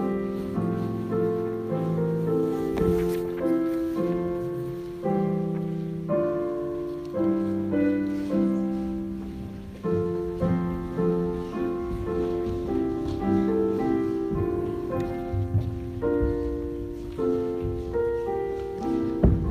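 Piano playing a hymn in full chords at a steady, moderate tempo, each chord struck and then fading.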